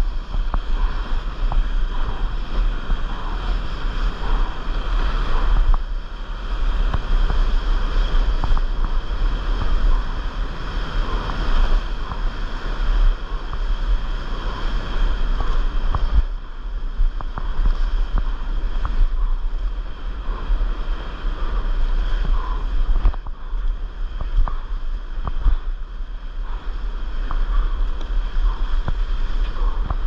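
Foamy surf and whitewater rushing and splashing around a surfboard close to the microphone, with wind buffeting the mic as a steady low rumble.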